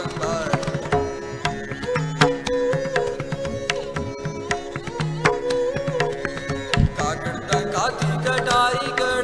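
Instrumental passage of Sikh bir ras kirtan: tabla playing many quick strokes under a dilruba's bowed melody with sliding notes, over held harmonium tones.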